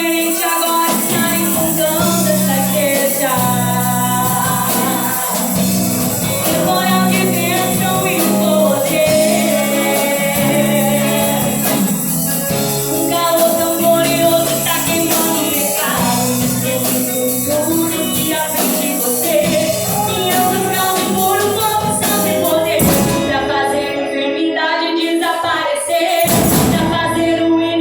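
Gospel worship song with singing over a percussion band, with a steady high shimmer of jingling percussion throughout.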